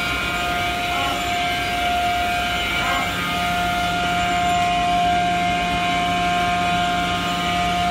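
Steady hum of workshop machinery with a constant high-pitched whine over it.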